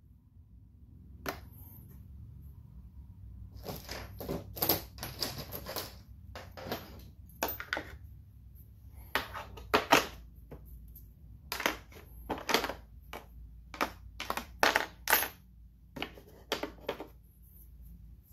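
Irregular clicks and clatters of small items knocking against a moulded hard plastic tool case as they are handled and set into it, sparse at first and coming thick and fast from about four seconds in.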